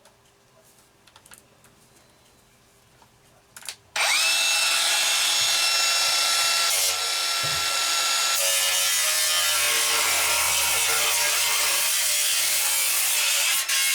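An angle grinder starts about four seconds in with a rising whine, then runs loud and steady as it cuts the stainless-steel inner drum of a drum washing machine. It drops out briefly near the end.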